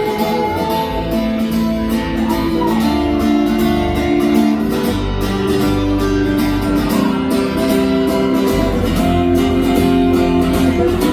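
Live band playing an instrumental passage without vocals, with guitar to the fore over a steady beat.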